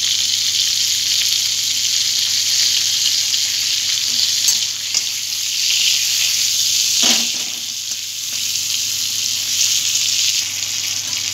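Hilsa fish heads sizzling steadily as they fry in hot vegetable oil in a metal kadai. A metal spatula scrapes and knocks against the pan a few times as the heads are turned.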